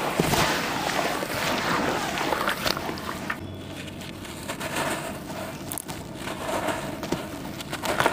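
Dusty charcoal slabs being crushed and crumbled by gloved hands into a bucket of water: a dense gritty crumbling for the first few seconds, then quieter with scattered sharp cracks, and another burst of crumbling near the end.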